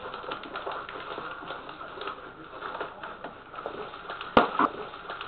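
Quiet ballfield background with faint scattered ticks, then a single sharp pop about four seconds in: a pitched baseball smacking into the catcher's mitt on a called third strike.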